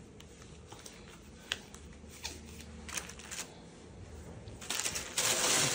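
Faint rustling and a few light clicks of gloved hands scrubbing an antiseptic swab over the skin of the neck, with a louder rustling hiss near the end.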